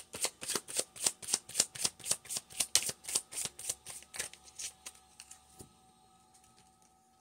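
A deck of cards being shuffled by hand: a quick run of crisp card snaps, about five a second, that thins out and stops about four and a half seconds in.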